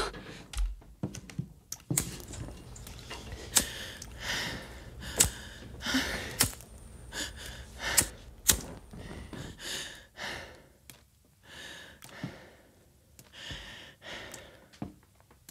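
A person searching a room: shuffling and rustling, with a string of sharp knocks and clicks as objects are moved and rummaged through.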